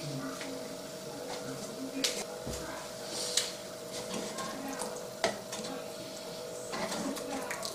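A metal ladle stirs thick tomato spaghetti sauce in a metal pan, scraping and knocking now and then against the pan, with sharp clinks about two and five seconds in. Under it runs a steady low hum.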